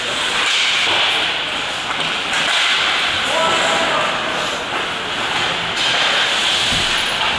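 Ice hockey game in play: a steady hiss of skate blades on the ice, with scattered knocks of sticks and puck and a low thud near the end. Players' voices come and go.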